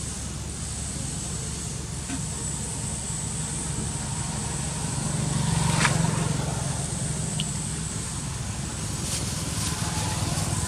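Low, steady engine rumble of a motor vehicle that swells to its loudest about six seconds in and then eases off, with a single sharp click at its peak.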